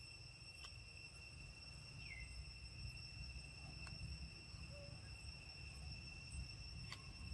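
Insects in the forest droning steadily at a high pitch, with a few sharp clicks and one short falling chirp about two seconds in, over a faint low rumble.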